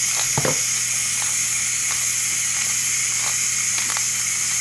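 Steady hiss of steam venting from the Ninja Foodi pressure cooker's release valve as its pressure is let off, over a low steady hum, with a few faint clicks.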